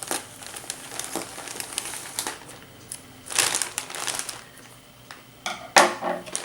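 Packaging crinkling and rustling as a shipped package is opened by hand, in irregular bursts, with a louder patch about halfway through and a sharp, loud crackle near the end.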